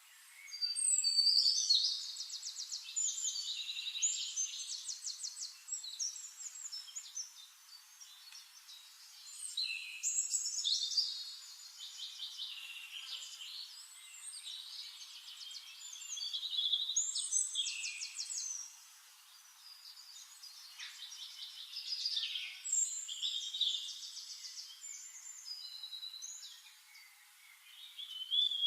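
Birdsong: a songbird singing high, rapid trilling and chirping phrases. The phrases come in swells every six seconds or so, each starting loudest and trailing off.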